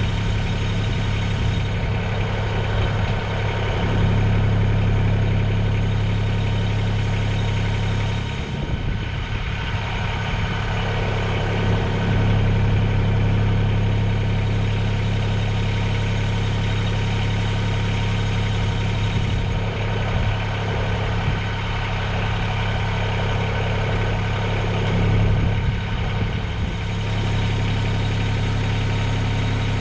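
Compact tractor's diesel engine running steadily at idle, with brief changes in its note about a third of the way in and again near the end.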